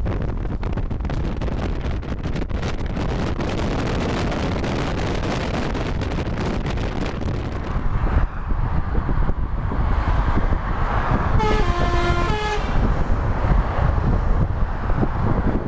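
Wind buffeting the microphone over road rumble from a car on the motorway, then the steady noise of motorway traffic. About three-quarters of the way through, a vehicle horn sounds for about a second.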